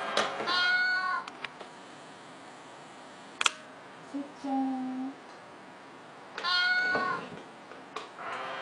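Two cat meows, one about half a second in and another about six and a half seconds in, with a few sharp clicks and a brief low hum between them.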